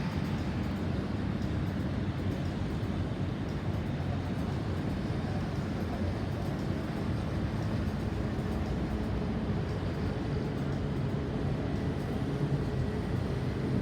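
Steady rumble of road traffic, with no siren plainly sounding.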